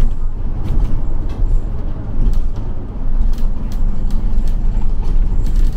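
City bus interior while riding: a steady low engine and road rumble, with occasional light clicks and rattles.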